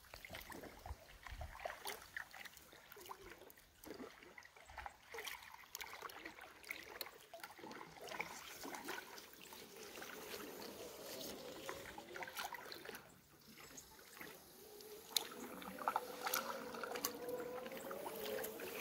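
Paddling a Sea Eagle inflatable kayak: paddle blades dipping and water trickling and dripping off them. In the last few seconds, as reeds drag along the vinyl hull, a wavering squeak sets in, a funny 'ooh' sound.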